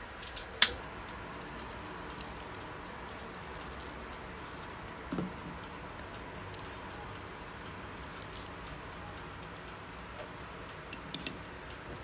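A kitchen knife clicks sharply on a plastic cutting board about half a second in. After that comes faint, light ticking over a steady low hum, from a toaster oven with its timer running while it bakes. A few sharper clicks sound near the end.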